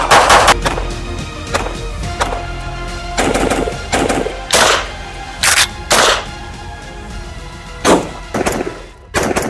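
Intro music with a steady low drone, cut with gunshots at irregular intervals and a quick string of rapid shots near the start.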